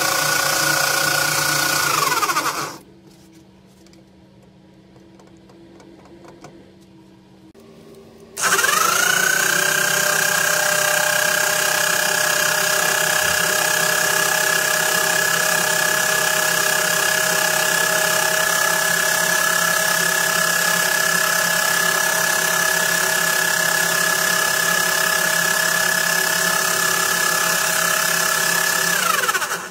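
Electric drive motor of a homemade armature lathe, spinning an armature with a steady whine. It winds down about two seconds in, stays off for several seconds with only a faint hum, starts again with a quickly rising whine around eight seconds in, runs steadily, and winds down again near the end.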